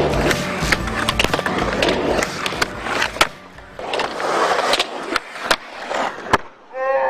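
Skateboard wheels rolling on concrete, broken by many sharp clacks of the board popping and landing. Music plays under the first three seconds or so, then stops.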